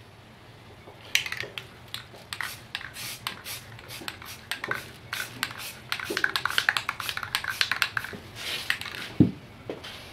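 Aerosol can of Rust-Oleum filler primer being shaken, its mixing ball rattling in quick runs of clicks, then a single thump near the end as the can is set down on the bench.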